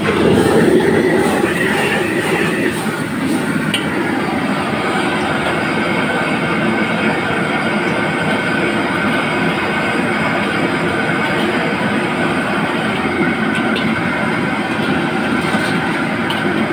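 Commercial high-pressure gas wok burner running with a steady rushing noise. It is louder for the first couple of seconds as flames flare up around the wok, with a few light metal clinks.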